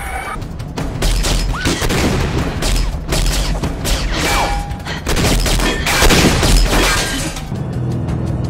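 A long volley of rapid gunfire, many shots in quick succession, with bullets breaking window glass. It starts about half a second in and stops about a second before the end, over a low music bed.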